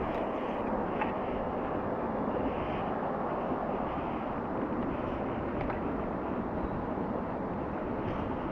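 Steady rushing of the Tone River's main current, an even noise with no change in level.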